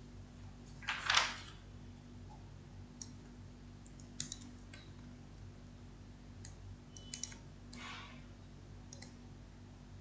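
Scattered faint clicks and taps from a pen or pointer working a digital whiteboard while a word is erased and rewritten. There is a short hiss about a second in and another near eight seconds, over a faint steady low hum.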